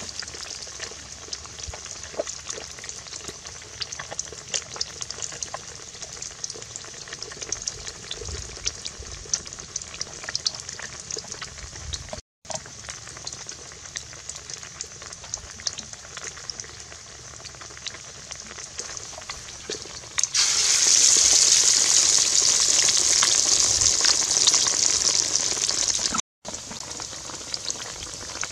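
Hot oil sizzling and crackling as battered fish pieces fry in a wok, a steady hiss full of fine pops. The frying grows clearly louder for several seconds near the end, then drops back.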